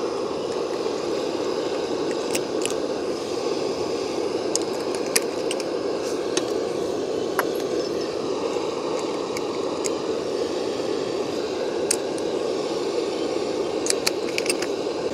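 A steady low rushing noise, with scattered small clicks and crackles as fresh thyme and rosemary sprigs and spice containers are handled and the herbs are rubbed between the fingers.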